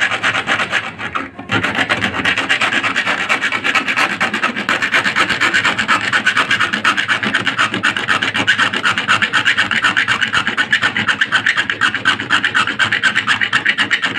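Bare hacksaw blade held by hand, sawing back and forth in rapid short strokes through a rusted, seized screw in a washing machine's plastic body, with a brief pause a little over a second in.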